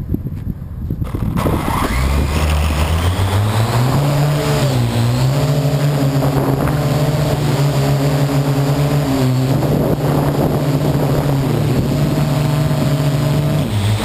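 Parrot AR.Drone quadcopter's electric motors and propellers, heard from on board, spinning up for takeoff about two seconds in with a rising whine, then a steady loud buzzing hum whose pitch dips and shifts a few times as it flies.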